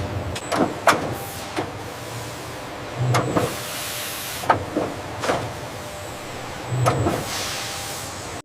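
Factory machinery running: sharp clicks and clunks at irregular intervals over a steady low hum, with a short hiss about three and a half seconds in and again near the end.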